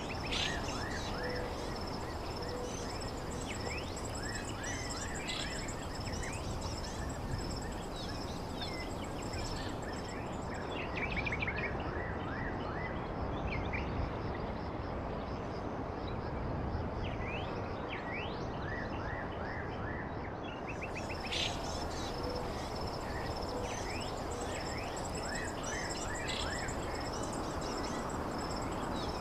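Outdoor ambience: small birds chirping in short rising calls over a steady background noise, with a steady high insect trill that drops out for about ten seconds in the middle.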